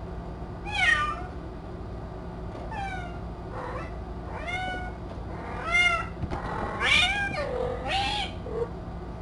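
Cat meowing: a run of about eight short, high calls, each falling in pitch, loudest about a second in and again around six and seven seconds, over a faint steady hum.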